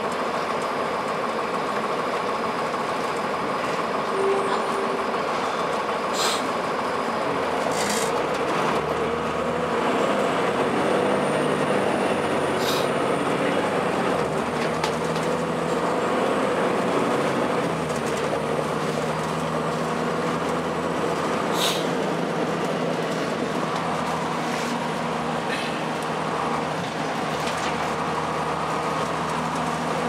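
2002 Blue Bird CS transit bus with a Cummins ISC diesel and Allison B400R transmission, heard from inside the cabin while cruising at highway speed: a steady drone of engine and road noise. A few sharp clicks stand out, four times.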